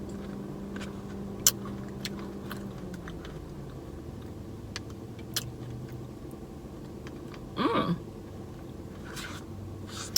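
Quiet eating of a soft-serve Blizzard: scattered sharp clicks of a spoon and mouth over a steady low hum that drops in pitch about three seconds in. A brief vocal sound comes about two-thirds through.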